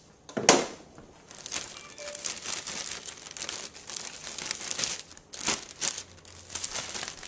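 Seasoned fish batter being mixed by hand after more seasoning salt is added: a sharp rustle about half a second in, then a steady run of scratchy, crinkly scraping and rustling strokes.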